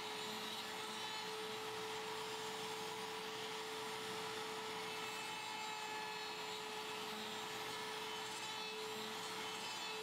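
Router fitted with a roundover bit running steadily, a constant even hum with one held tone, while easing over the edges of a pine handle.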